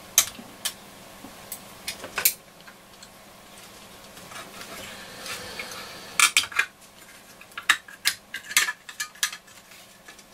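Small metal parts of a transistor radio's chassis and FM module clicking and clinking against each other and the case as the module is worked loose and lifted out. The clicks are scattered, with a faint scrape a little before the busiest stretch, and they come in quick clusters about six seconds in and again near the end.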